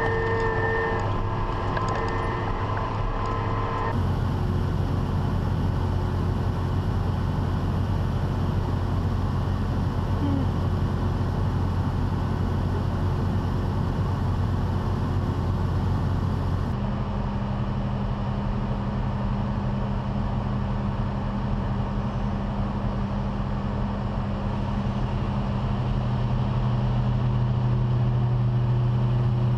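Farm harvest machinery running steadily, a continuous low engine hum under a broad mechanical drone. The sound changes abruptly twice, about four seconds in and again a little past the middle.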